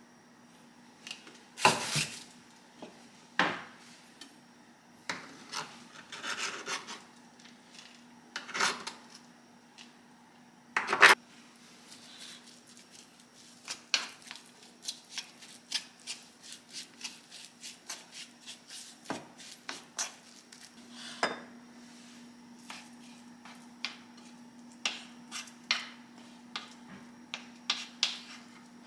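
Cooking utensils knocking and scraping against dishes and pots in a string of sharp clicks and clatters, with a quicker run of light taps in the middle. A faint steady low hum runs underneath.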